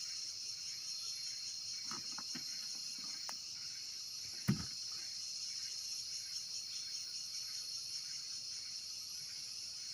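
Steady high-pitched chirring of insects in the background. A few faint clicks, and one short thump about halfway through.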